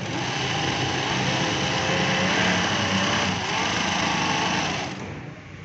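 Juki DDL-5550 industrial lockstitch sewing machine running at speed, sewing a test seam to check its freshly set hook (shuttle) timing. A steady whir that stops about five seconds in.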